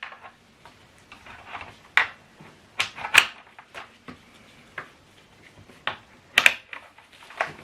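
Handling noise from a portable Bluetooth speaker and its accessories being fitted together: about eight sharp clicks and light knocks at irregular intervals, with faint rustling between them.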